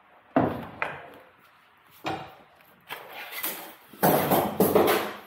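Sharp knocks and clatter from sheet metal and tools being handled, about eight irregular hits, bunched closest together near the end.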